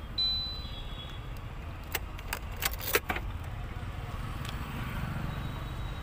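Sharp plastic clicks of a car dashboard switch being pressed, a few in quick succession about two to three seconds in, over a steady low background rumble. The switch is the toggle for the central-locking beep, and no beep is coming from it: the beep does not work.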